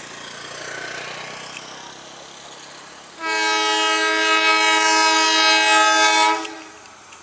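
Horn of a CC 201 (GE U18C) diesel-electric locomotive sounding one long blast of about three seconds, several notes at once, starting about three seconds in, over the low steady rumble of the approaching locomotive.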